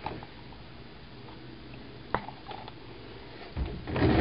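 Handling noises of a cordless drill held at a rifle's scope-mount screw: one sharp click about two seconds in, a couple of light ticks, then a short burst of knocks and rustling near the end. The drill motor does not run.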